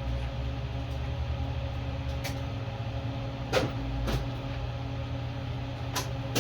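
A few short clicks and knocks from hand tools being handled, about two, three and a half and six seconds in, the middle one the loudest, over a steady background hum.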